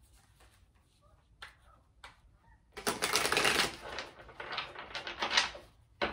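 A deck of tarot cards being shuffled by hand: a few faint taps, then a dense run of rapid card flicking for about three seconds starting near the middle, and a couple of short taps near the end.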